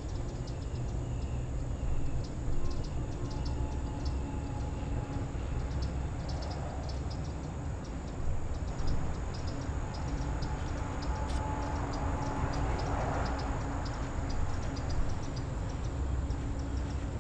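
Steady low rumble of distant vehicles, with a rapid run of short, high-pitched ticks over it.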